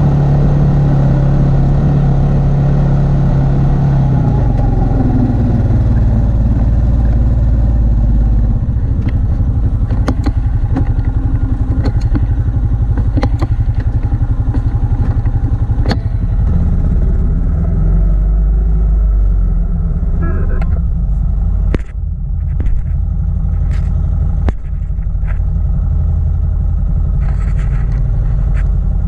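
Quad (ATV) engine running while plowing snow; its note drops about four seconds in. Occasional sharp knocks and clatter sound over the engine.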